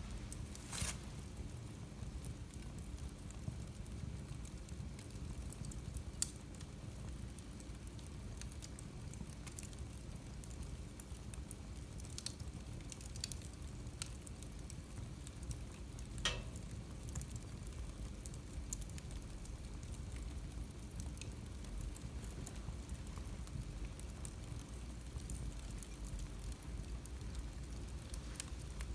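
Wood fire burning in a fireplace: a steady low rumble of the flames with scattered sharp crackles and pops, the loudest about a second in and about sixteen seconds in.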